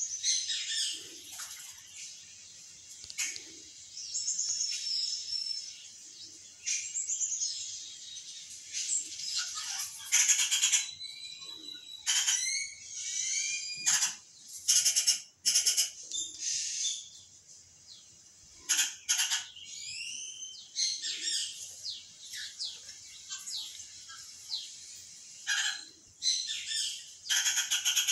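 Bird calls and songs played through a television's speakers: many overlapping chirps, rapid trills, quick rising whistles and buzzy bursts, densest and loudest about halfway through.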